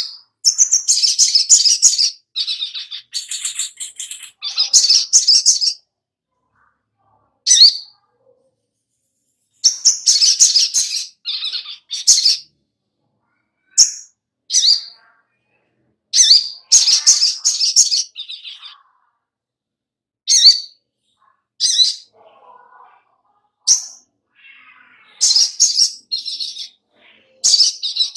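Male olive-backed sunbird singing in about a dozen short, high-pitched bursts separated by brief pauses. Each burst opens with a sharp rising note and runs on into a fast chattering trill.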